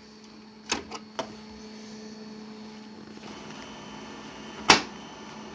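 HP LaserJet 5M laser printer: a few quick plastic clicks as its cover is shut, then its fan and drive motors start a steady whir about three seconds in, with one sharp loud click near the end as it begins warming up.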